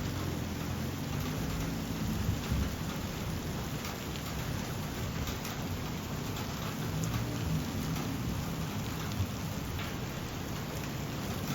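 Steady rain falling, with individual drops tapping close by and a low rumble underneath.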